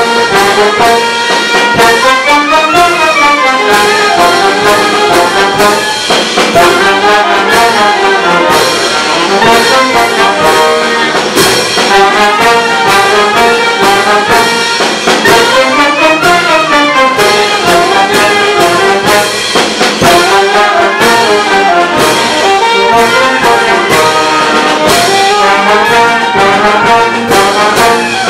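Brass band of trumpets and trombones playing a loud, continuous melody over a steady beat.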